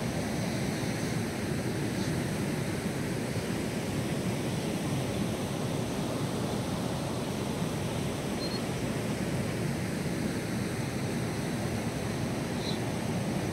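Steady rush of river water pouring through a barrage's open sluice gates, a heavy monsoon release.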